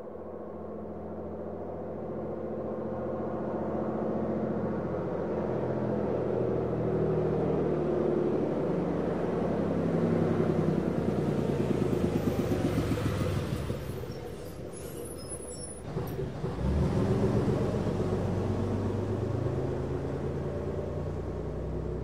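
Bus engine heard from outside, growing louder as the bus pulls in, then dropping back with a short hiss about fourteen seconds in. Just after sixteen seconds the engine picks up again with a low surge as the bus pulls away.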